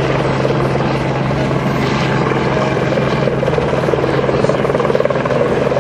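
Loud, steady engine drone with a constant low hum, mixed with wind and water noise.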